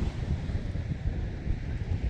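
Sea wind buffeting the microphone in low, uneven gusts, over a steady wash of sea water.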